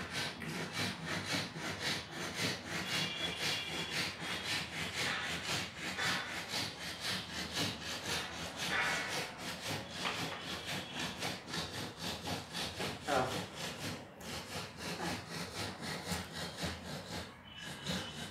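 Steady, rhythmic rasping strokes, about four a second, that start abruptly and stop near the end.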